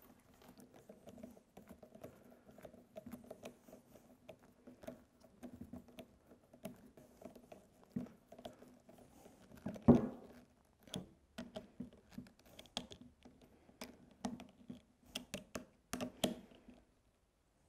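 Small screws driven by hand with a screwdriver into the top block of a GM windshield washer pump: faint, irregular light clicks and ticks of the tool and metal screws against the plastic block, with one louder knock about ten seconds in.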